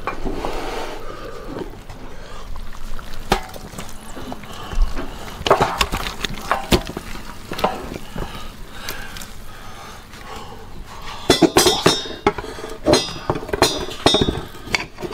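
Metal clinks and knocks of a pressure-cooker pot and utensils against a stainless steel tray as braised pork and sauce are tipped and scraped out. The clinks come singly at first, then in a quick cluster over the last few seconds.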